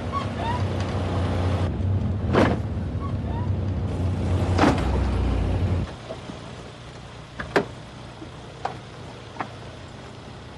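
Car engines idling while the car behind bumps into the back of a stopped hatchback twice, about two seconds apart, each a short dull knock. About six seconds in the engine rumble stops, and a few light clicks of a seat belt and car door follow as the driver gets out.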